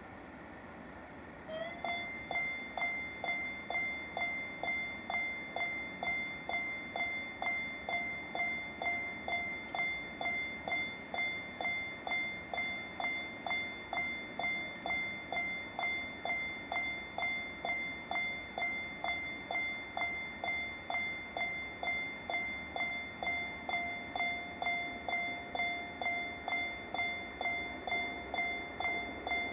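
Japanese railroad level-crossing warning bell starting up about a second and a half in and ringing steadily at about two strokes a second.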